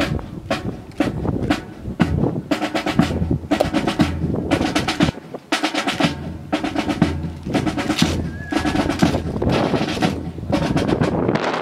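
Drum-led music with snare drum rolls and bass drum, with many sharp clacks and taps over the notes.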